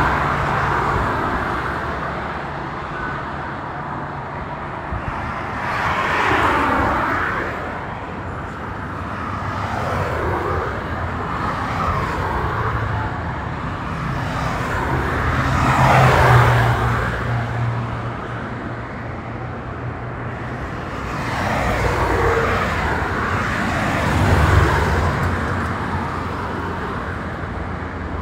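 Highway traffic passing close by: tyre and engine noise over a steady road hiss, with about five vehicles going past one after another, each swelling and fading away. The loudest pass comes just past the middle, carrying a low engine hum.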